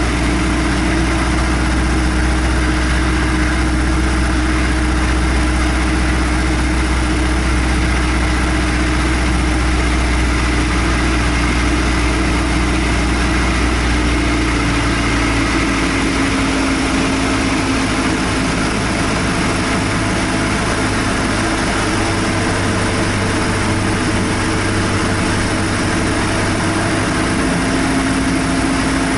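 Piston engine and propeller of a Cessna 172 seaplane running steadily. About halfway through, the engine note steps down lower and the deep rumble fades, as power is reduced.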